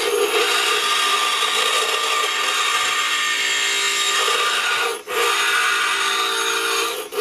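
Bench grinder wheel grinding a forged steel blade, a steady harsh grinding over the grinder motor's hum, as an edge is put on a hardy cut-off tool. The grinding breaks off briefly twice, about five seconds in and just before the end.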